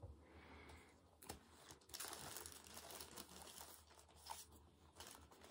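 Faint crinkling rustle of packaging being handled, strongest in the middle, with a light tap just over a second in.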